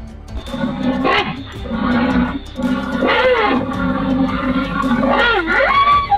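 Recorded rhinoceros calls: repeated growling calls that swoop up and down in pitch, about one every two seconds.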